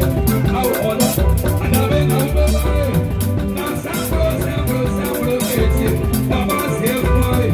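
Live band playing an upbeat groove: guitar lines over drum kit and cymbals, with strong low bass notes.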